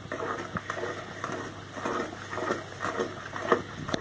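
A mixing utensil stirring thick chocolate cake batter by hand in a plastic bowl: irregular scraping and knocking strokes against the bowl, two or three a second, with one sharper knock near the end.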